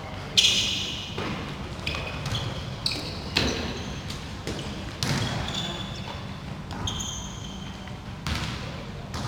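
Rubber dodgeballs thudding and sneakers squeaking on a wooden sports-hall floor, echoing in the large hall. Several sharp thuds, the loudest about half a second in.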